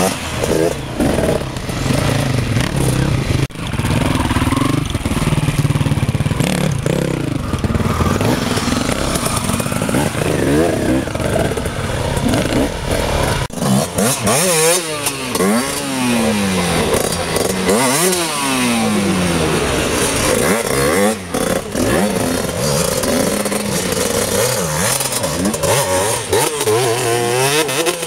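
Enduro dirt bike engines revving hard under load as riders climb a steep, rutted hill, the pitch rising and falling over and over with the throttle.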